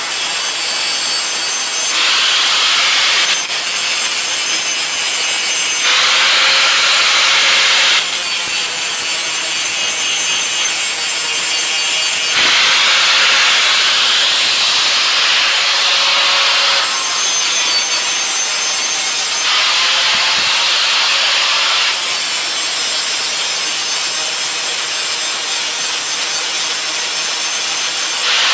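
Steady abrasive grinding of a steel knife blade on a power grinder, a continuous hiss with a faint motor tone under it, jumping in level every few seconds.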